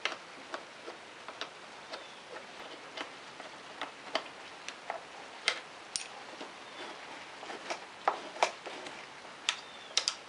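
Irregular light clicks and taps, roughly two a second, of small metal parts and a hand tool being handled while a motorcycle handlebar switch housing is reassembled.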